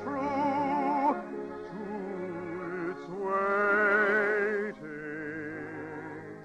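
Operatic solo voice singing long held notes with wide vibrato over an orchestral accompaniment, on a 1951 radio broadcast recording. The loudest held note comes about three to five seconds in.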